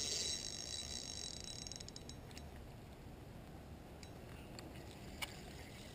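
Spinning reel on a rod bent into a hooked grass carp: a high buzz fades out within the first second, then faint scattered clicks and one sharper click near the end.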